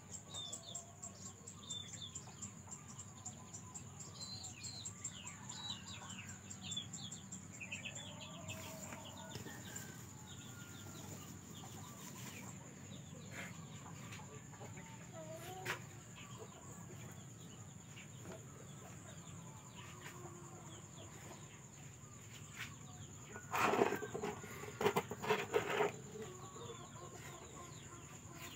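Chickens clucking, with a loud run of clucks and squawks a little before the end; light chirps in the first third, over a steady high whine.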